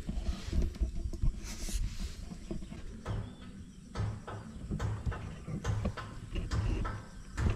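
Rustling, crackling and snapping of plant leaves and stalks being handled as a part is pulled off, with irregular low rumbling bursts.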